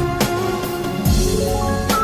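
Background music: held instrumental tones over a drum beat, with a run of rising notes in the second half.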